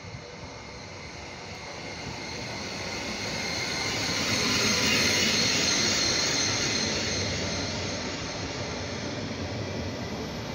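Stadler FLIRT3 electric multiple unit pulling into the platform as it slows to terminate. Its wheel and motor noise, with a faint high whine, grows louder to a peak as it passes about five seconds in, then eases off.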